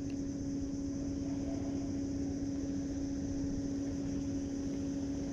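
Steady mechanical hum of a motor, one constant tone that does not change, over a low rumble of wind and water.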